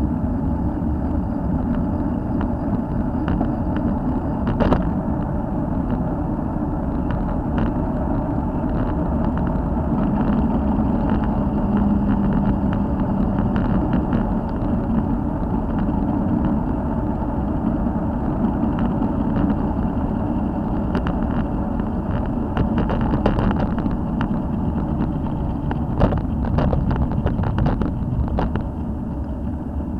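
Steady rumble of wind and tyre noise on a bicycle-mounted camera during a road ride among car traffic, with scattered rattling clicks as the bike goes over bumps.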